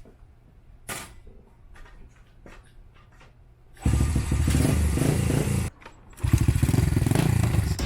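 Honda Gorilla's small single-cylinder four-stroke engine starting up about four seconds in after a few light knocks, running, cutting out briefly and then running again.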